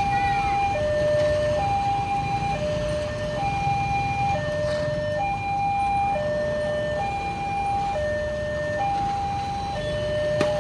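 Railway level-crossing warning alarm sounding a repeating two-tone high-low chime, about one cycle every two seconds, signalling an approaching train. Motorcycles and cars run over the crossing beneath it.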